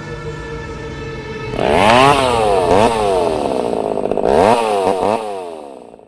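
Chainsaw engine revved up and down several times, its pitch rising and falling with each rev, then dying away near the end; a steady droning tone plays underneath at the start.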